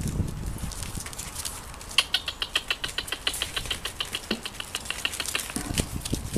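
Puppies' paws and claws scrabbling at a wire pen, making a rapid run of light metallic clicks and rattles, about seven a second, that starts about two seconds in and stops about two thirds of the way through.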